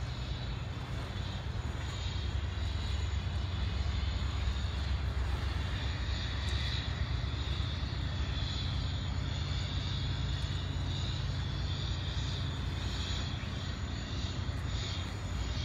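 Steady low engine drone, swelling slightly about four seconds in.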